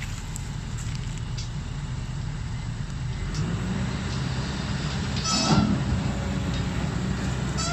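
Kobelco SK200 excavator's diesel engine running steadily, its note strengthening a little partway through as the machine works. About five and a half seconds in comes one brief, loud, high-pitched sound.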